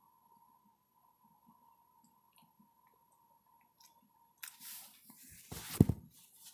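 Faint clicking and smacking of a small dog licking and chewing frozen popsicle pieces from a hand. About four seconds in comes a burst of rustling, then a loud low thump as the recording phone is handled.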